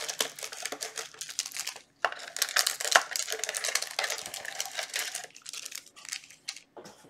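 Plastic trading-card packaging crinkling and tearing as it is opened by hand, with a short pause about two seconds in and sparser rustling after about five seconds.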